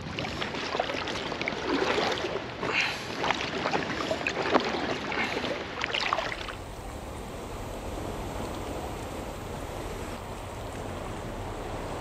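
Paddle strokes splashing and dripping in the water, in irregular bursts. About six and a half seconds in this cuts off abruptly, leaving a steady wash of surf.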